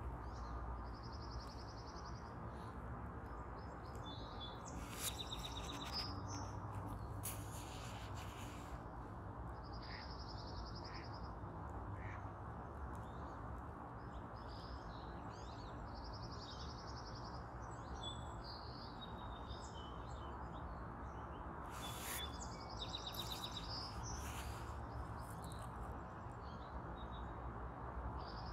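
Small songbirds singing short high trills, each about a second long and repeated every few seconds, over steady low background noise. A few brief sharp sounds stand out, around five, eight and twenty-two seconds in.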